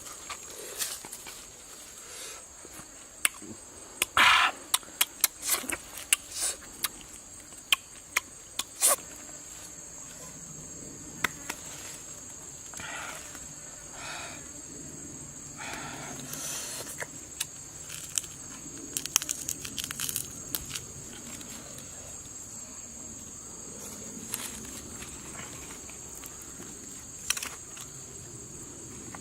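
Steady high-pitched insect drone, with scattered sharp clicks and knocks and a few short pitched sounds, the loudest about four seconds in.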